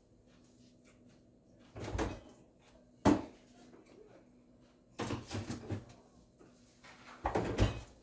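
Kitchen knocks and bumps: four short clusters of handling noise, the sharpest a single knock about three seconds in.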